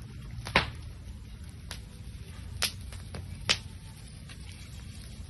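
Open wood fire crackling under a spit-roasted whole pig, with sharp pops about once a second over a low steady rumble.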